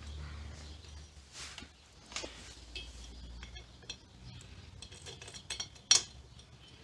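Light metallic clinks and taps of engine parts being handled as a head gasket and bolts are fitted, with a sharper click near the end.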